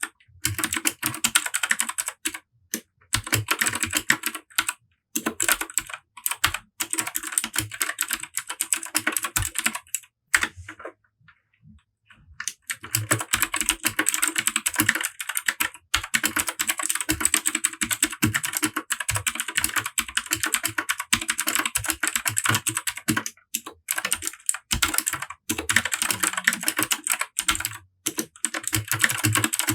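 Typing on a Royal Kludge RK100 mechanical keyboard with Gateron Blue clicky switches: rapid runs of sharp clicks. About a third of the way in the typing stops for roughly two seconds, and there are a few shorter breaks elsewhere.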